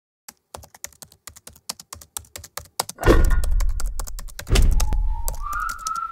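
Rapid, even typing clicks, about seven a second, for text being typed out. About three seconds in a deep boom hits, another follows a second and a half later, and a whistled tune starts near the end while the clicks go on.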